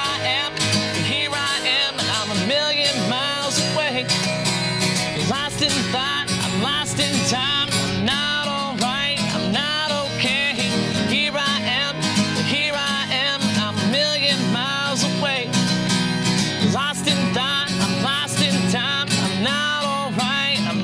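Epiphone acoustic guitar strummed and picked steadily, playing a song.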